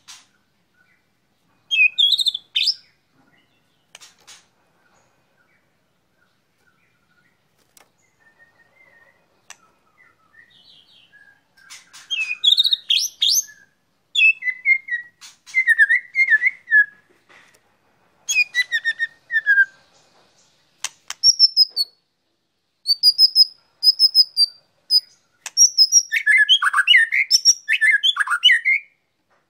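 White-rumped shama singing in short whistled phrases. After the first phrase it is quiet for several seconds, then the phrases come thick and fast, ending in a long, rapid run of notes.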